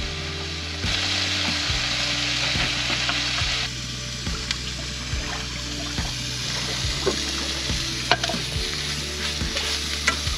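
Food frying and sizzling in a pan over a campfire. The sizzle swells for a few seconds near the start, and scattered small crackles and clicks follow.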